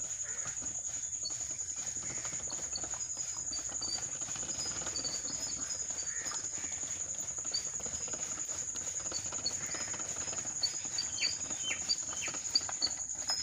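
Steady, high, finely pulsing chirring of insects such as crickets, with short bird chirps over it and a few sharp clicks near the end.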